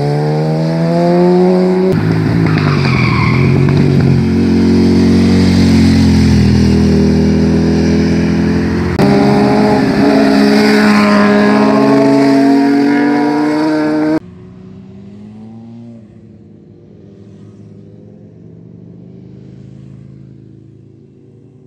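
Sport motorcycles leaning through hairpin bends, their engines revving up out of the curve and falling in pitch as they pass, with one rider after another. The engine sound cuts off abruptly about two-thirds of the way through, leaving only faint steady tones.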